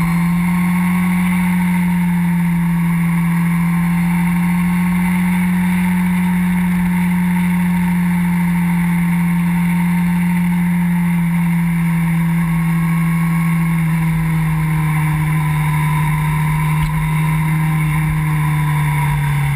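Motorcycle engine running at a steady cruising speed, with wind rushing over the microphone; the engine note eases down a little near the end.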